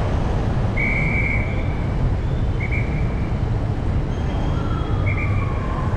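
City street traffic: a steady rumble of passing cars and motorbikes, with three short horn beeps. Near the end a faint tone starts and glides slowly downward.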